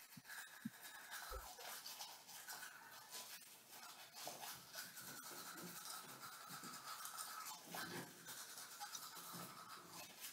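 Faint, irregular scratchy scrubbing of a manual toothbrush on teeth, over low room tone.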